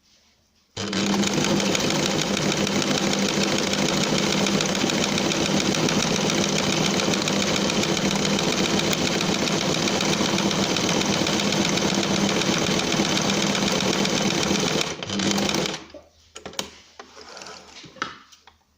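Electric domestic sewing machine running steadily at speed, stitching bias binding on through a bias-binding presser foot. It starts suddenly about a second in, stops briefly, then stops for good about three-quarters of the way through, followed by a few faint clicks and handling sounds.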